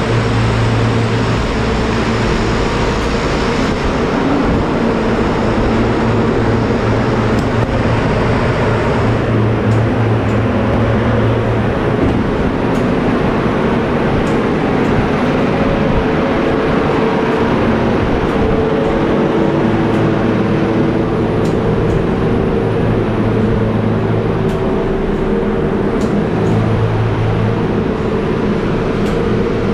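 Loud, steady machinery hum inside a container ship's steel cargo hold, where refrigerated container units are running. Its deep hum eases off for a few seconds in the middle, then comes back.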